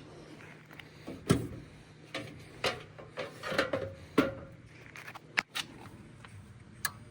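A run of irregular sharp clicks and knocks, like tools or metal parts being handled at a furnace, the loudest about one and a half seconds and four seconds in.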